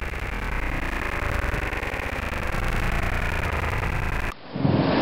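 Thunderstorm heard through a camera microphone: a steady rushing noise with a low rumble. It cuts out abruptly a little past four seconds, and a louder burst of storm noise with thunder and rain starts just before the end.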